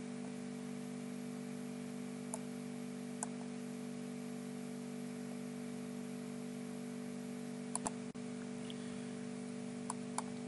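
A computer mouse clicking about five times, scattered and singly, with two close together, over a steady low electrical hum.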